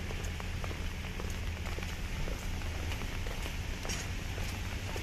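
Steady rain falling on pavement and a wet road, with many small scattered drop ticks over a steady low rumble.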